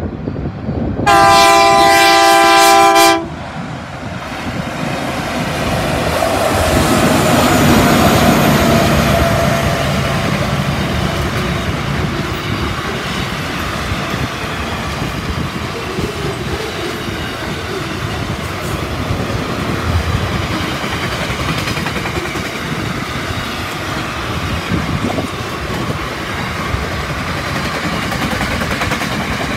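Diesel freight locomotive sounds a multi-note horn for about two seconds, then runs past, its engine loudest about eight seconds in. A long rake of box wagons follows, rolling by with a steady rumble and occasional wheel clicks.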